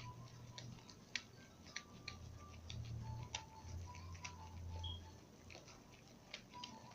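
Sticky, soap-foamed fluffy slime being worked and mixed, giving faint, irregular little clicks and pops as it stretches and sticks.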